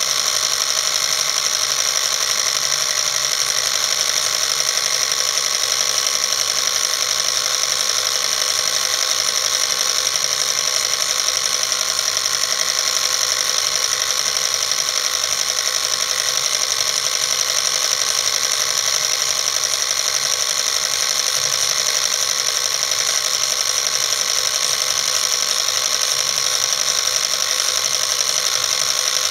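Film projector running: a steady, unchanging mechanical whirr from the projector's film transport and motor.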